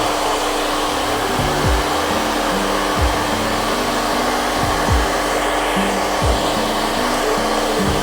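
A 1600-watt hair dryer running steadily, a constant rush of air over a steady motor hum.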